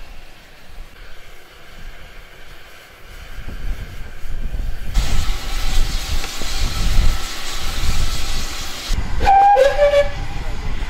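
GWR Hall class steam locomotive 6989 Wightwick Hall hissing steam loudly for about four seconds, then a short blast on its steam whistle, slightly rising and wavering in pitch, about nine seconds in.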